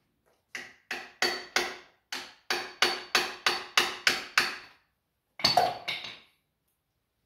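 A hammer striking metal: about a dozen sharp blows at roughly three a second, each with a brief metallic ring, then a quick flurry of two or three more blows about a second later.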